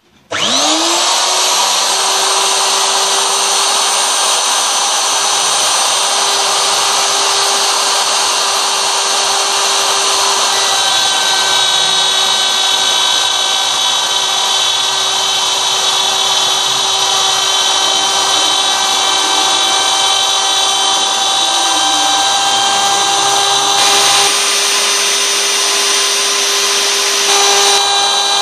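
Handheld wood router used as the spindle of a homemade CNC router, spinning up with a quick rising whine and then running at a steady high pitch as its bit cuts a circle into plywood.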